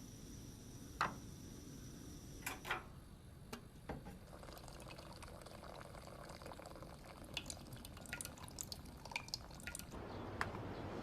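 Faint scattered drips and small clicks, with a steady rush like running or pouring water setting in near the end.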